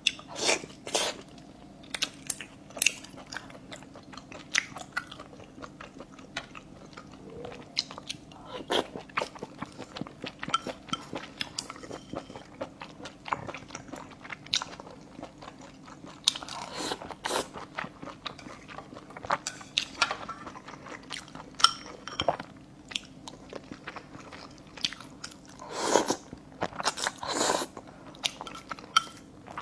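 Close-miked chewing and biting of braised fish innards, including fish maw, with rice: wet mouth sounds and many short crunchy clicks, with a few louder bites or slurps near the end. A faint steady hum runs underneath.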